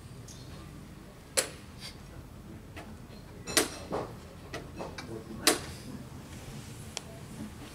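Wooden chess pieces set down on the board and chess clock buttons pressed during a blitz game: a series of sharp clicks and knocks, the three loudest about two seconds apart, with fainter taps between.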